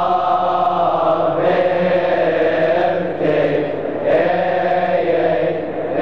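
Coptic deacons' choir of young men chanting a hymn in Coptic together, on long held notes that move slowly from pitch to pitch, with brief breaks for breath.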